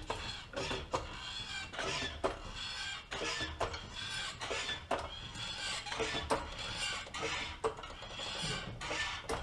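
Irregular light metal clinks and scrapes of hand tools and parts being handled while the front track bar is fitted to the Jeep's axle bracket.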